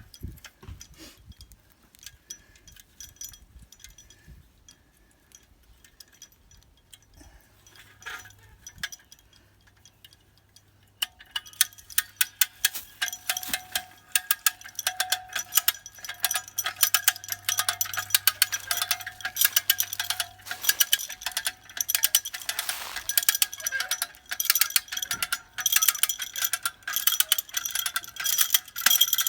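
Hand-ratchet cable puller (come-along) being worked to tension a cable on a tree about to be felled: faint, scattered clicks, then from about eleven seconds in a fast, loud run of metallic ratchet clicks with a ringing edge.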